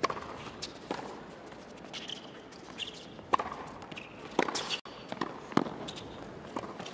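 Tennis rally on a hard court: the pop of a serve, then a series of sharp racket strikes and ball bounces, roughly a second apart, with a few short high squeaks between them. The crowd is hushed.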